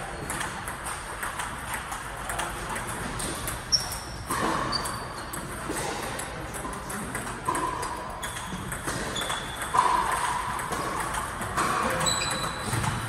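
Table tennis ball clicking back and forth off paddles and table in a steady backhand rally, with more clicks from neighbouring tables in the hall. A few short high squeaks are heard along the way.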